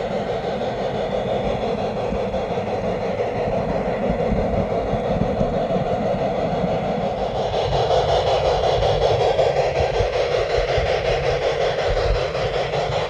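Model two-truck Shay logging train and its log cars running over the track, heard from on board: a steady rolling rumble and whir. It grows louder about halfway through and eases near the end.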